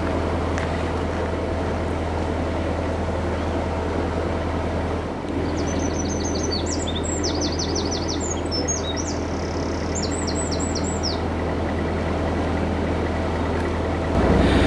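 Narrowboat's diesel engine running steadily with a low hum. A small bird sings a quick series of high chirps and trills through the middle.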